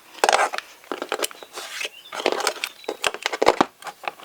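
Irregular sharp clicks and clatter from hand tools and small plastic-and-metal cable connectors being handled and set down.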